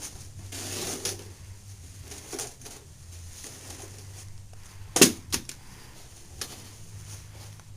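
Scattered clicks and knocks of objects being handled, with a louder double knock about five seconds in.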